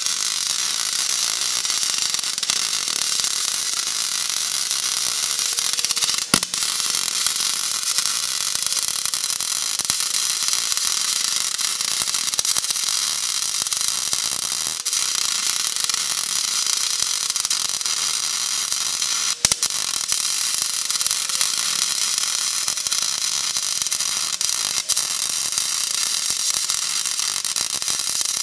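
MIG welding arc laying a bead on a cast iron blower housing end cap: a steady sizzling crackle. It breaks off briefly twice, about six seconds in and again near twenty seconds, then picks up again.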